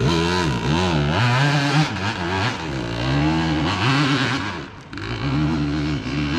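Dirt bike engine on a hill climb, revving up and falling back again and again as the throttle is worked, with a short dip in level about five seconds in.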